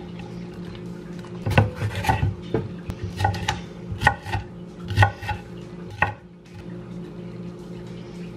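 Kitchen knife chopping red bell pepper on a wooden cutting board: a run of sharp, uneven knocks of the blade on the board from about a second and a half in until about six seconds in.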